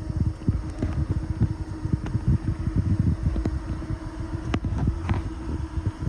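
Off-road vehicle engine running with a steady hum, under uneven low-pitched buffeting on the microphone. A sharp click comes about four and a half seconds in.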